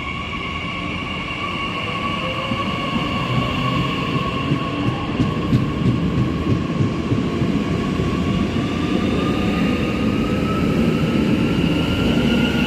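A train running through a station: the rumble of its wheels with a steady high whine that rises slowly in pitch, growing gradually louder.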